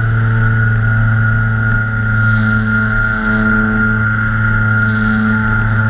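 Twin electric motors and propellers of a TwinStar RC plane running steadily at cruise, heard from a camera on board as a droning hum with a high whine.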